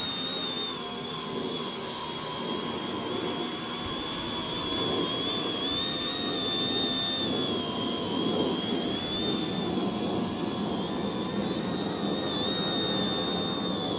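HobbyKing X900 tricopter's three electric motors and propellers running in flight: a high whine that wavers up and down in pitch over a steady propeller buzz, growing a little louder about five seconds in.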